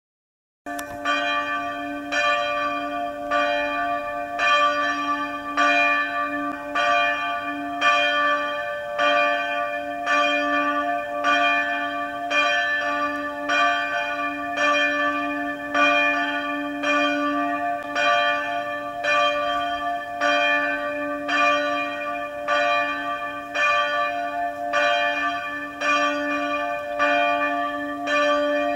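Church bells ringing in a steady, even rhythm, struck several times a second. Several bells of different pitch sound together over a low, lingering tone; the ringing starts suddenly just under a second in.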